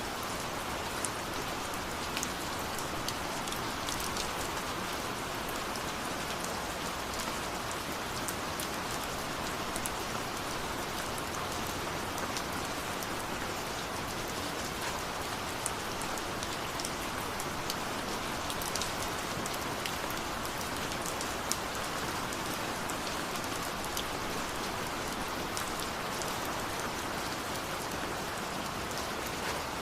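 Steady rain falling, with the scattered ticks of individual drops hitting a surface.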